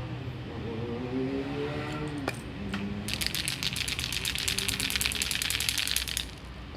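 Aerosol spray-paint can being shaken, its mixing ball rattling in a fast run of clicks for about three seconds, starting about halfway in.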